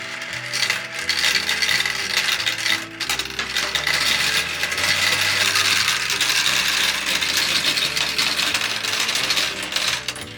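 Gumballs rolling and clattering down a plastic marble run: a dense, continuous rattle of small clicks as the balls roll and drop through the track pieces.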